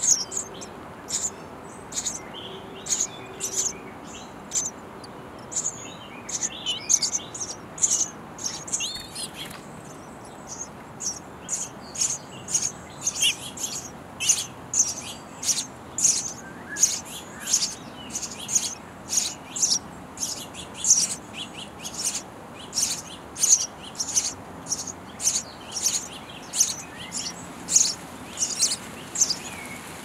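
House sparrow nestlings begging from inside a wooden nest box: a steady run of short, high, shrill chirps. The chirps come closer together, about two a second, in the second half, while a parent feeds them insects at the entrance hole.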